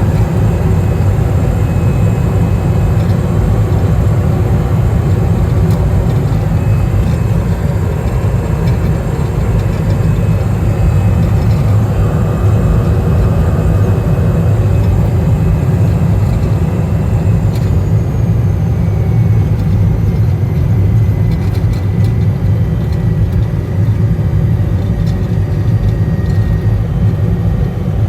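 Cessna Caravan's single Pratt & Whitney PT6A turboprop engine and propeller running steadily at low power, a deep even drone. A faint high whine dips slightly in pitch a little past the middle.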